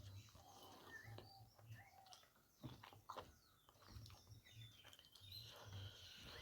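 Faint close-miked eating sounds: soft mouth clicks and wet smacks while chewing curry and rice, with a few short squeaky tones among them.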